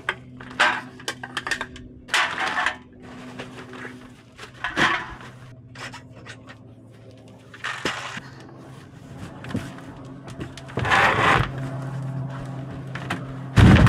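Hard objects being handled: irregular clattering, knocks and scrapes, with one sharp loud knock near the end, over a steady low hum.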